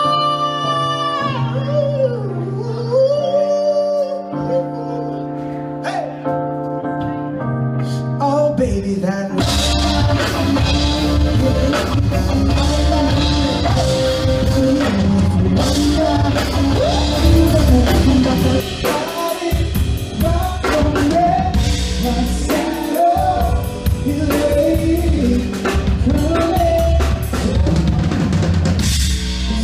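Pop band playing with a lead singer: the voice over sustained chords at first, then the full band with drum kit comes in about nine seconds in and carries on.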